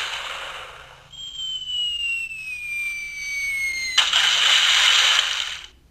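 Electronic pirate sound-effects toy playing a cannon-style effect through its small speaker: a burst of blast noise, then a whistle falling steadily in pitch for about three seconds, then a second, longer blast about four seconds in.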